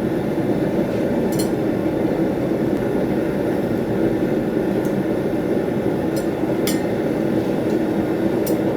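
A forge running with a steady roar, with a few light metallic clinks of tools or stock over it.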